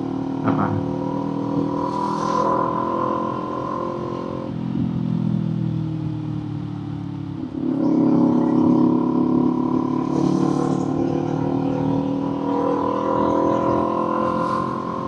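Kawasaki Z400 parallel-twin engine heard from the saddle while riding. The engine note sinks as the bike eases off, then about halfway through the throttle opens, the engine gets clearly louder and it pulls steadily.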